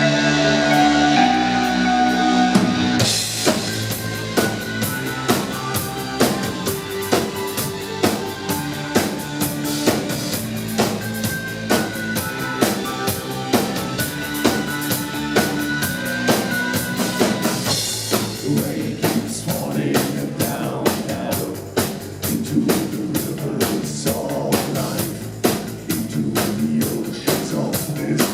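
Live band music: held synthesizer chords, then a drum kit comes in about three seconds in with a steady beat. The drumming gets busier and heavier from about eighteen seconds in.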